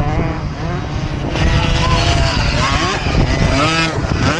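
Several small dirt bike engines revving, their pitch rising and falling again and again as the bikes race.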